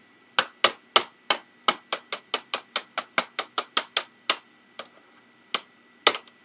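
Sharp clicks and taps of hard plastic, about twenty in quick succession and then a few more spaced out near the end, as a plastic case piece of an Xbox 360 Slim is pressed and snapped onto the console.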